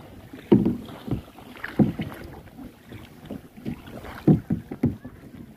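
Kayak paddle strokes in the water: a run of short splashes at uneven intervals, about eight in all.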